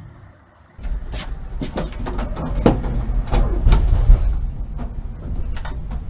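Konstal 105Na tram running: a low rumble with frequent rattles, clicks and knocks, which starts abruptly about a second in.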